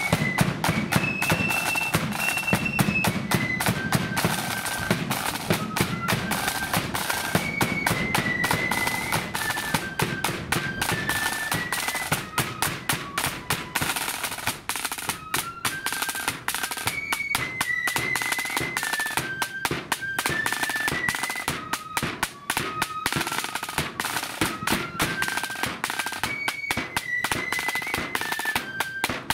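Marching flute band playing a march: flutes carrying a stepped melody over rapid snare drumming and a bass drum beat.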